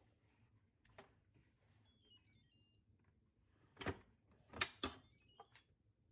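A short electronic beep melody of quick stepped tones plays about two seconds in and again near the end, with three sharp clicks or knocks between them.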